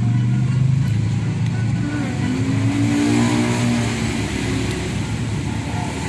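Motor engine running with a low steady drone, while a second engine note rises and then falls in pitch about two to four seconds in.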